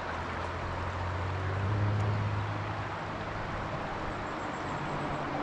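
Shallow river water rushing over rocks and gravel as an even hiss, with a steady low hum underneath that swells slightly about two seconds in.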